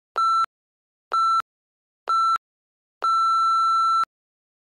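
Workout interval timer beeping: three short beeps about a second apart, then one long beep as the countdown reaches zero, marking the end of a work interval.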